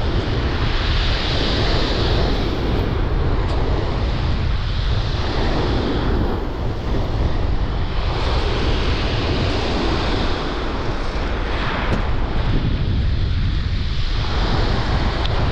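Strong wind buffeting the microphone over surf breaking on the shore, the rush of the waves swelling and easing every few seconds.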